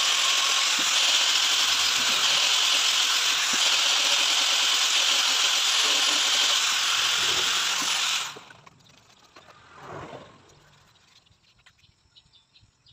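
Handheld electric disc sander running against a carved wooden sheath, a steady loud whir and hiss of abrasive on wood that cuts off suddenly about eight seconds in. A brief softer swell follows a couple of seconds later.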